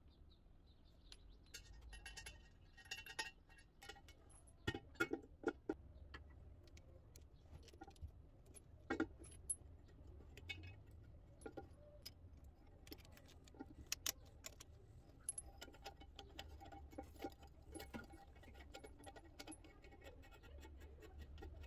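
Scattered metallic clinks, rattles and small knocks of a basin mixer tap and its braided stainless-steel flexible hoses being handled and fitted through a ceramic washbasin's tap hole.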